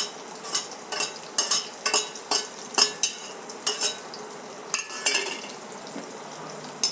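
Steel ladle scraping and knocking against an aluminium kadhai, about two or three strokes a second and thinning out near the end. Under it, a steady sizzle from chopped onions and green chillies frying in hot oil.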